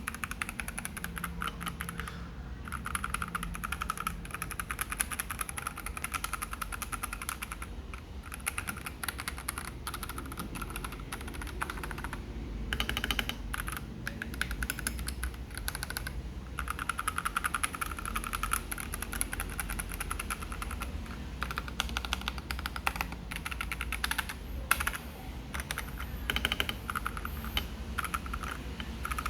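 Fast typing on an FL Esports CMK87 mechanical keyboard fitted with Kailh Box Cool Mint switches: a dense, continuous run of keystrokes, stopping briefly a few times.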